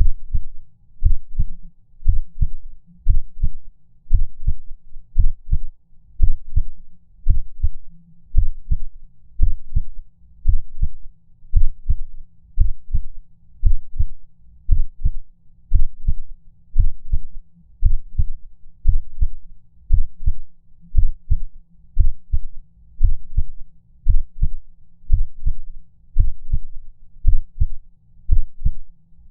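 Heartbeat sound effect of a heart skipping beats: low lub-dub thumps, about one beat a second.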